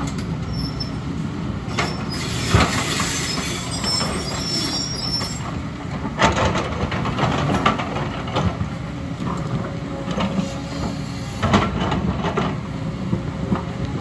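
JCB tracked excavator working: its diesel engine runs steadily under load while the steel bucket scrapes and knocks through rock and soil, with sharp clanks about 2.5, 6, 7.5 and 11.5 seconds in. A high metallic squeal runs from about two to five seconds in.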